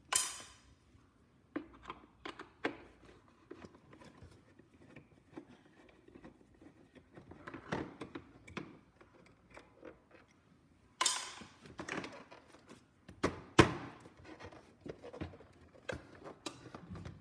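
Handheld screwdriver clicking and scraping as screws are backed out of a pressure cooker's plastic bottom case, with scattered small clicks of handling. About 11 s in the plastic case starts knocking and thunking, with several louder knocks a couple of seconds later as it is worked loose.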